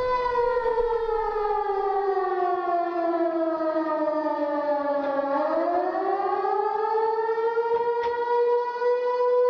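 Air-raid siren sounding a steady tone that slowly falls in pitch for about five seconds, then rises back up and holds.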